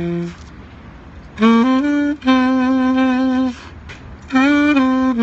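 Saxophone playing a slow hymn melody in separate phrases. A held note ends just after the start. Then come two phrases of a few stepped notes, each settling into a long held tone, with short breaths between them.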